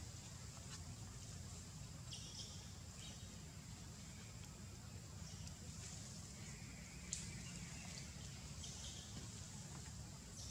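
Quiet outdoor ambience: a steady low rumble and a thin high steady whine, with a few brief high chirps scattered through.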